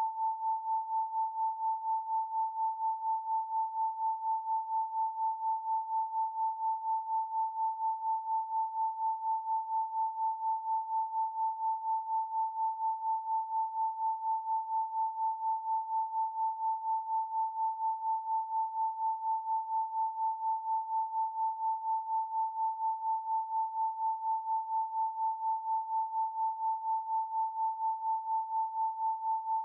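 A pure 888 Hz sine tone held steadily, its loudness pulsing evenly a few times a second.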